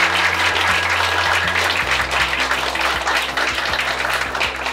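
A roomful of people applauding: a steady, dense patter of many hands clapping.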